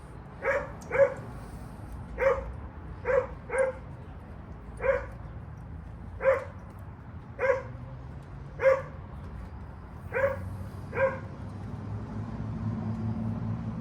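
A dog barking repeatedly: about eleven short barks at irregular spacing, a few of them in quick pairs.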